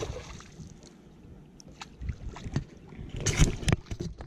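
Rustling and knocking of close handling, then a loud splash in shallow pond water at the bank about three seconds in.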